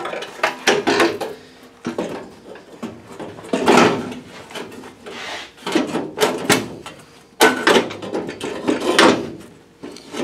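Sheet-steel truck firewall being handled and set in place against the car: irregular knocks, clanks and scraping, heaviest in two stretches in the middle and toward the end.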